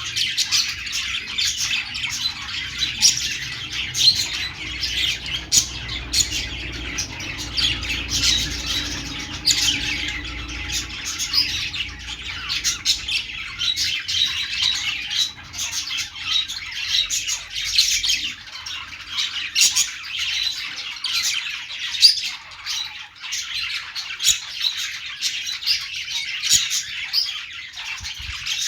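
Several budgerigars chattering, warbling and chirping without a break, with frequent short, sharp squawks through the chatter.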